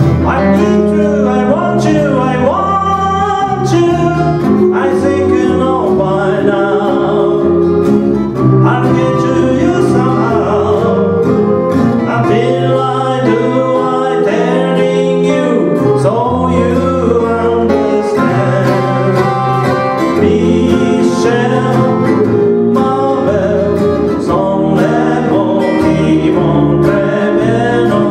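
Small live acoustic band: a man singing over several strummed and picked acoustic guitars.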